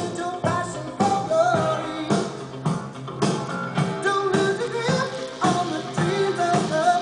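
Rock-pop song with a singing voice over a steady drum beat and guitar.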